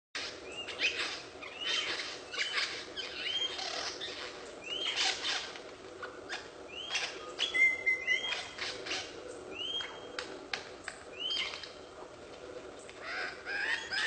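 Male lyrebird singing during its courtship display: short whistled notes that rise and fall, repeated every second or so, mixed with short crackling notes.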